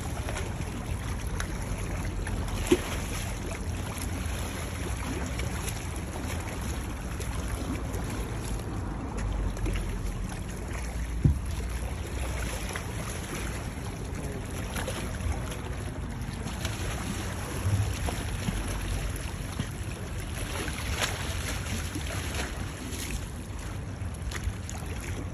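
Wind buffeting the microphone as a steady low rumble, over small waves lapping at a stony lakeshore, with a couple of brief sharp knocks.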